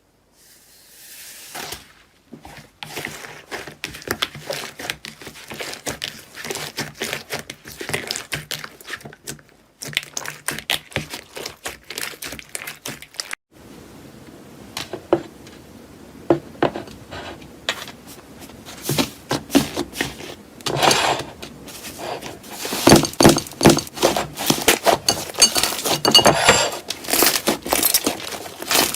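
Hands squeezing, poking and stretching slime, giving dense runs of small clicks and pops. The sound grows loudest and busiest over the last several seconds.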